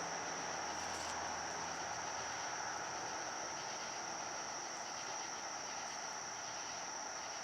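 Crickets trilling without a break in one steady high-pitched note, over a faint even hiss.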